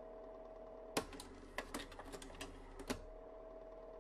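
Sparse, irregular typewriter-style key clicks, about half a dozen, over a faint steady tone that drops out after the first click and returns near the end.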